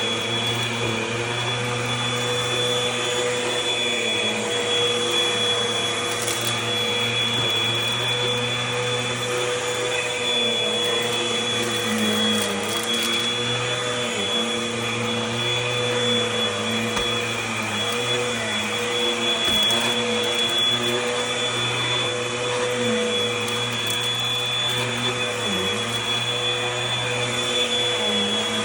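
Eureka AirSpeed Gold upright vacuum cleaner running steadily on carpet, a constant motor hum with a high, steady whine.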